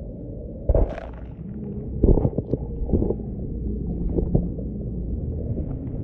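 Muffled underwater rumble of moving stream water picked up by a submerged camera, with a handful of sharp knocks against the camera about a second in and again around two and three seconds.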